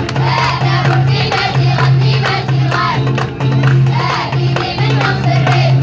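A school choir of young voices singing an Amazigh (Berber) song together, over a low held note and a steady percussion beat.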